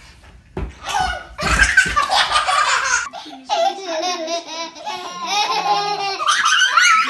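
Young children laughing hard, in bursts, with a few dull thumps in the first part. About three seconds in, the sound changes to two little girls' rapid, high giggling laughter.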